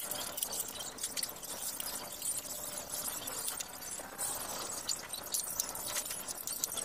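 Many small, scattered clicks and metallic taps of an exhaust pipe and tools being handled as the pipe is fitted back onto a motorcycle; the engine is not running.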